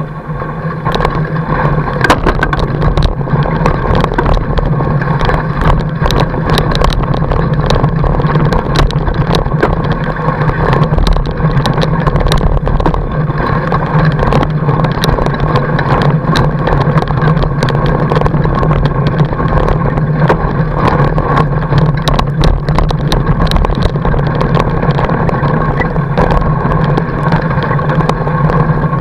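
Riding noise from a fat bike rolling over packed snow, heard through a camera mounted right beside the wide tyre: a loud, steady low drone with frequent clicks and rattles.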